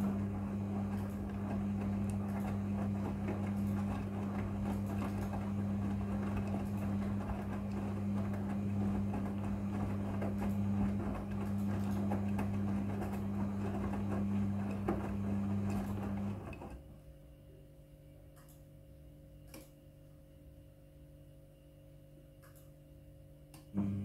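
Midea front-loading washing machine's drum motor turning the laundry in the wash cycle: a steady low hum with the clothes tumbling in the drum. About 16 seconds in the motor stops suddenly and the drum rests, then it starts up again just before the end.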